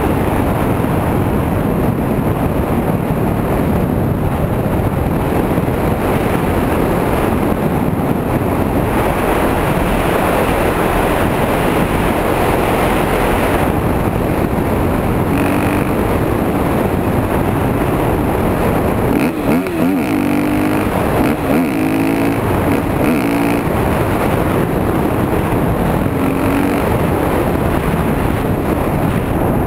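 A single-cylinder dirt motorcycle riding at road speed, its engine running under heavy wind rush on the microphone. Past the middle, the engine note wavers up and down a few times.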